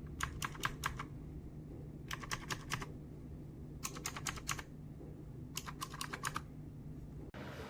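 Keys of a mechanical keyboard fitted with ABS cat-paw keycaps being typed in four quick bursts of about five clicks each, over a steady low hum.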